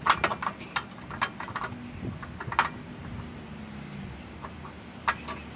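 Light metal clicks and clinks of bolts and nuts being fitted by hand to a steel hitch bracket on a trailer frame: a quick run of them at first, then a few scattered ones.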